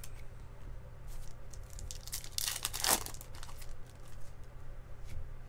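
Foil wrapper of a baseball card pack being torn open and crinkled in a burst a little after two seconds in, with a few light clicks of cards being handled.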